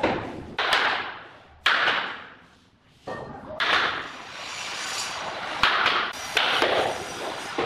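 Flooring planks being laid and knocked into place: a series of sharp knocks and thuds, about six, each trailing off. There is a brief near-silent gap about two and a half seconds in.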